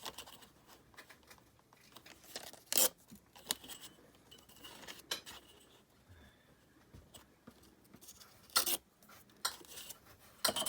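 A glossy calendar page being handled, giving scattered short paper crinkles and rustles, with a few louder crackles about three, five and eight and a half seconds in and again near the end.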